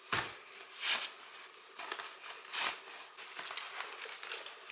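Rustling and swishing of a cloth dust bag being handled as a shopping bag is pulled out of it, with a few louder swishes in the first three seconds.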